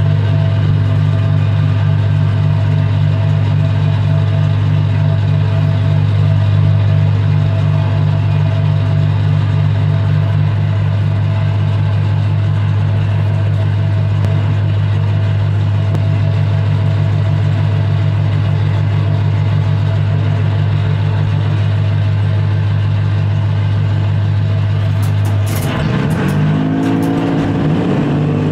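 Heavy diesel engine running at a steady speed with a deep drone. About three seconds before the end it dips, then its pitch rises to a new, higher steady speed, with a few clicks at the change.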